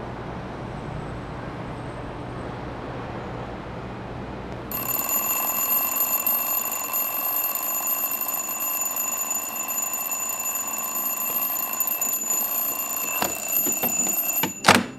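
A twin-bell alarm clock starts ringing suddenly about five seconds in, a steady, loud, high-pitched ring. Just before the end there is a sharp knock and the ringing cuts off as a hand slaps the clock to silence it.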